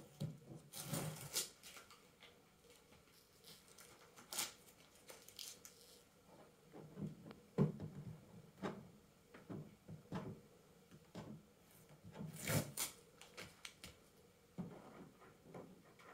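Hands handling a plastic-wrapped 3D printer enclosure: scattered knocks, taps and rustling of the plastic film, with louder rustling bursts about a second in and again near the end.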